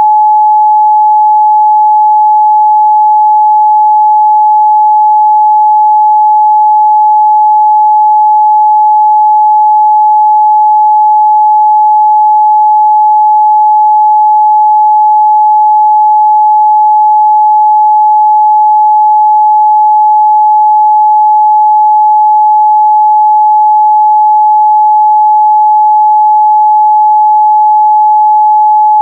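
Steady 852 Hz pure sine-wave test tone, one unchanging pitch held at a constant level.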